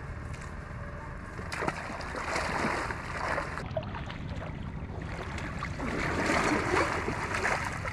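Water splashing and sloshing in two swells, over a steady wind rumble on the microphone.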